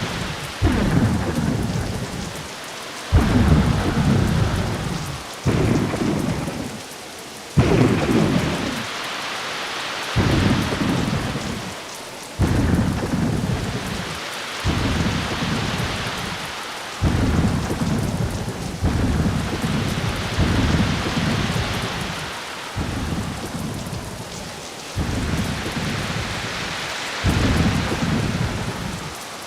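Rainstorm ambience: steady rain with low rumbles that start suddenly about every two seconds and fade away.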